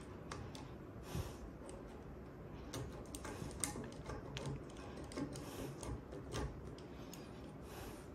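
Irregular light clicks and ticks of a Katana lock decoder being worked in a clamped lock cylinder, with a few short scrapes of the tool being handled.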